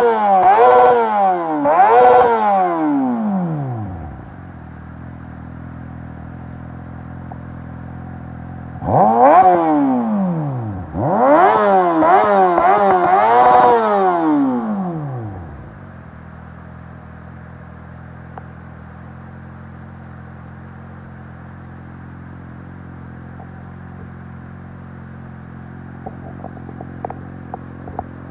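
2020 Kawasaki Ninja ZX-6R's inline-four engine through an M4 slip-on exhaust, blipped through quick revs that rise and fall, then settling to a steady idle. It is revved again in a run of blips from about nine to fifteen seconds in, then drops back to idle, with a few light clicks near the end.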